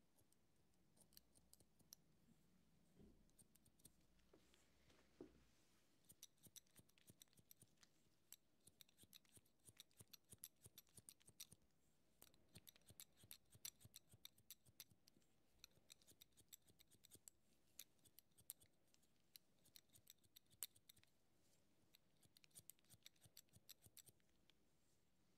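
Barber's scissors snipping through hair, soft and close. A few scattered snips at first, then quick runs of many crisp snips after about six seconds.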